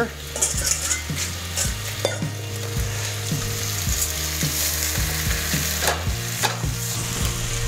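Soaked basmati rice tipped from a metal strainer into a pot of spices frying in oil, sizzling as it hits the hot oil, while a utensil stirs and scrapes the pot with a few light knocks. A steady low hum runs underneath.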